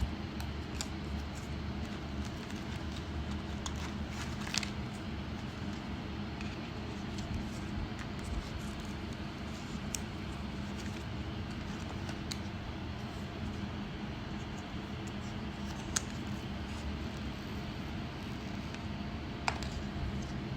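Steady background hiss and low hum with a handful of sharp, separate clicks, such as a phone or its packaging being handled.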